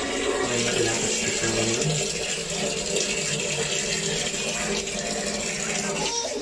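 Water running steadily from a bathroom tap, a constant hiss that cuts off suddenly near the end.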